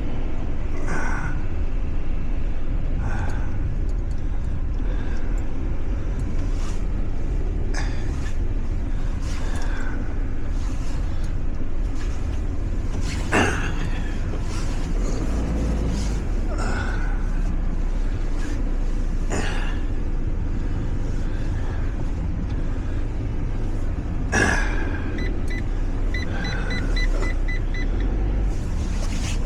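Van engine and road rumble heard from inside the cab while driving, with occasional knocks and clicks, and a quick run of short high beeps near the end.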